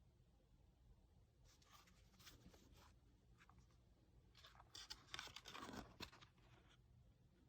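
Faint rustling and scraping of packaging being handled, in two short spells, one about a second and a half in and a longer one around five seconds in, over a low steady room hum.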